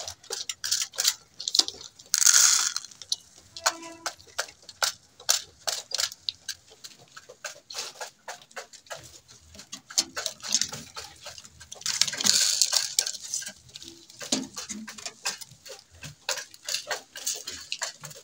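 Pigeons pecking grain in their cage, a dense run of small irregular taps, with brief loud rustles about two seconds in and again about twelve seconds in.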